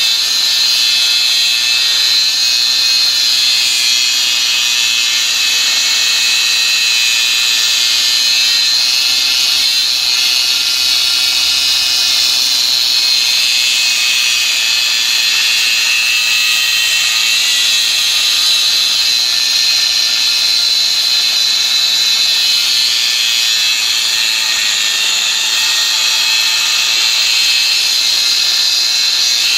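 Battery-powered angle grinder cutting into a steel railway rail: a steady, loud, high-pitched grinding that runs without a break, the motor's pitch sagging slightly near the end.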